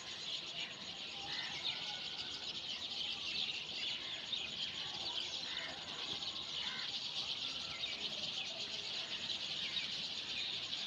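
A large flock of small birds chirping together, a dense, unbroken chatter of many overlapping high-pitched calls.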